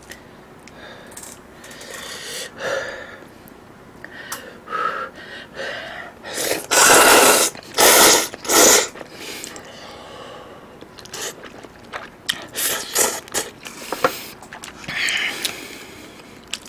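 Thick udon noodles slurped close to the microphone, with three loud slurps about seven to nine seconds in. Smaller slurps and wet chewing sounds come before and after them.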